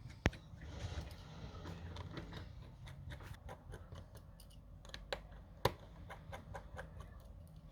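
Scattered light clicks and taps of small metal repair tools on a smartphone's frame as its tiny screws are undone, with two sharper clicks, one just after the start and one near the end.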